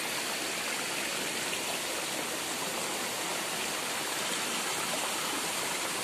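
Steady rush of water from a small waterfall cascading over rocks into a stream.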